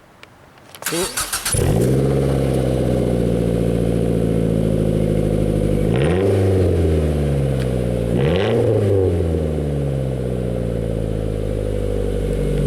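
Mazda Protegé engine cranking and catching, then idling through its freshly welded exhaust, blipped twice to a quick rise and fall in revs before settling back to idle. This is the first start after the exhaust work, and it sounds growlier.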